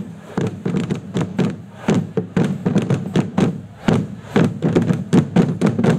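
Marching-band drums beating a steady rhythm, about four strokes a second.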